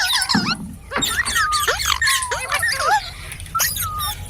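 Green parrot chirping and squawking in a rapid string of short, sliding high calls.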